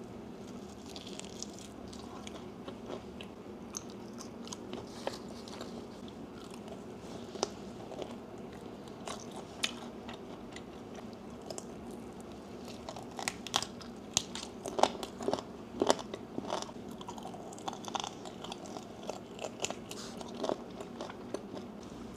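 Biting into and chewing a crispy KFC fried chicken drumstick: scattered wet crunches and mouth clicks, coming thicker and louder a little past the middle.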